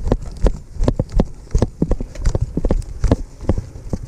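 Running footsteps on a steep dirt hillside, a regular stride of about two and a half thumps a second, picked up by a chest-mounted camera on the runner's plate carrier so each footfall jolts the microphone.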